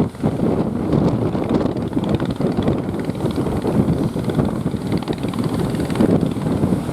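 Strong wind buffeting the microphone in a loud, uneven rumble over heavy surf.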